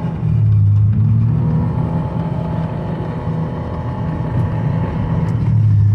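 Vehicle engine running steadily at an even speed, a constant low hum with no change in pitch.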